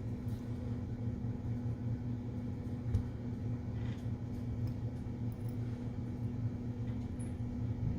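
Steady low electrical hum, with a soft knock about three seconds in and a faint small handling noise a second later.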